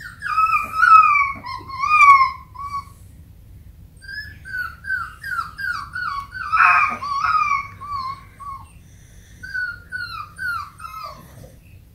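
Seven-week-old Chihuahua x Fox Terrier puppy whining: a string of short, high whimpers, each falling in pitch, in three bouts with brief pauses between.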